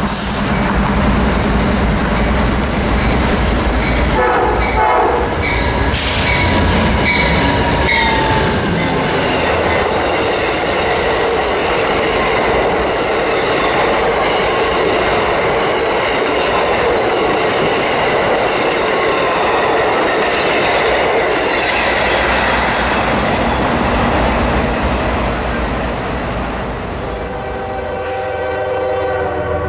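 Amtrak P42DC-led passenger train passing close at speed. Its horn sounds in blasts about four to eight seconds in and drops in pitch as the locomotive goes by, followed by the long steady rumble and clatter of the passenger cars. Near the end another locomotive horn starts sounding.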